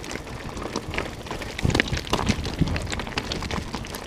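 Mountain bike tyres rolling and crunching over loose stones on a rocky descent, with the bike rattling and many small clicks and knocks, busier in the second half.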